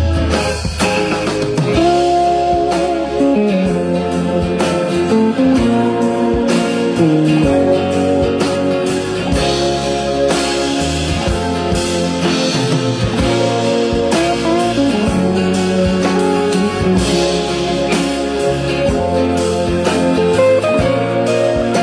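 Blues guitar music with sliding, bending notes over a steady bass line, played back through a single-ended tube amplifier and Klipsch loudspeakers.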